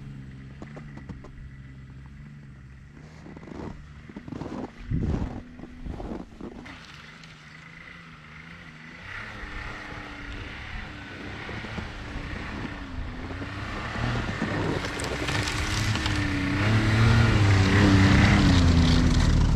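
Ski-Doo Skandic 900 ACE snowmobile, a three-cylinder four-stroke, idling steadily, then coming closer and driving past with its engine pitch rising and falling, getting louder and loudest near the end. A few sharp knocks sound about four to six seconds in.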